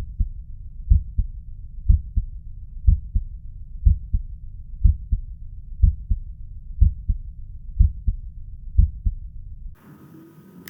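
Recorded normal heart sounds on auscultation: the first and second heart sounds (B1 and B2) beat as a steady lub-dub, about one beat a second. The sound is low-pitched and stops near the end.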